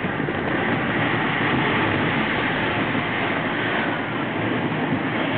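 Steady rushing noise of a fairground thrill ride in full motion, heard from a seat on the ride: wind rushing past and the ride's machinery running.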